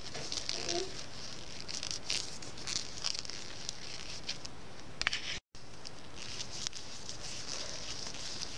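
Hand knitting on circular needles: irregular light clicks of the needle tips and rustling of the wool as stitches are worked, over a steady background hiss. The sound cuts out completely for an instant about five and a half seconds in.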